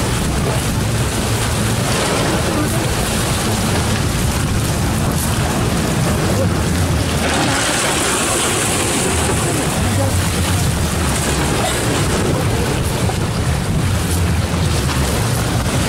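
Outboard motors of small aluminium motorboats running close by, a steady low hum under wind on the microphone and water noise, with a brighter hiss for a couple of seconds about halfway through.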